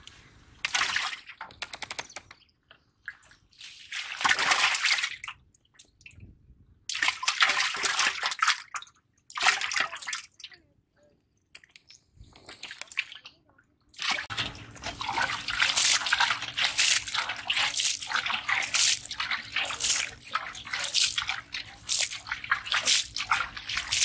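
Wet splashing of live fish handled and flapping in a plastic crate, in short separate bursts at first. From about 14 seconds in the splashing becomes continuous, with water sloshing over the fish near the end.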